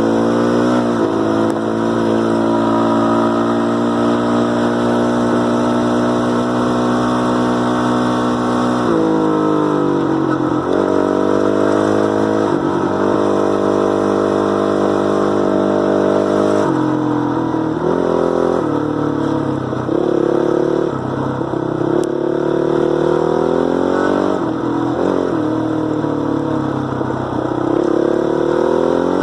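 2006 Honda CRF450R's single-cylinder four-stroke engine running at held, raised revs, dropping back about nine seconds in, held up again for several seconds, then revved up and down several times in the second half.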